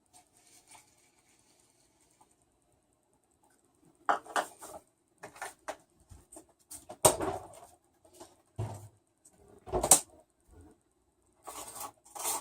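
Plastic kitchenware being handled and set down on a counter: after a few near-silent seconds, a string of short knocks and clatters, with two louder knocks about seven and ten seconds in.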